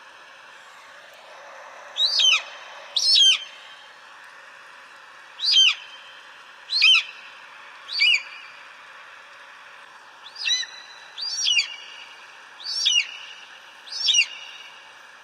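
An eagle calling: nine short, shrill cries, each dropping sharply in pitch, spaced irregularly about a second or two apart over a steady background hiss.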